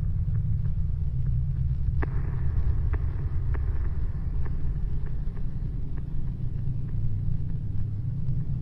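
Steady low rumbling background ambience with a few faint clicks scattered through it, the clearest about two seconds in.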